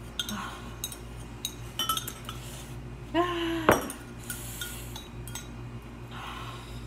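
A metal utensil clinking and scraping against a ceramic bowl as the last of the noodles are scooped out, in scattered sharp clicks. A little past halfway comes a brief pained vocal cry, ending in a louder clink.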